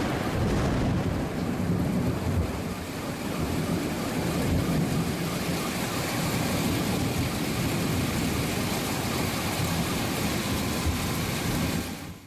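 Severe thunderstorm noise: rain and gusty wind over a low, continuous rumble, fading out at the very end.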